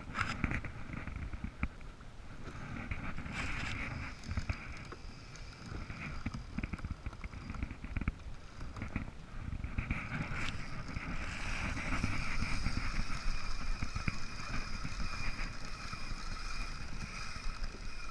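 Wind buffeting the microphone and choppy sea washing against a plastic fishing kayak, with a Penn Spinfisher spinning reel whirring, strongest in the second half, while a hooked sailfish is fought.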